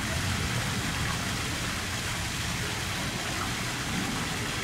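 A steady, even rushing hiss of water-like noise, with no separate events.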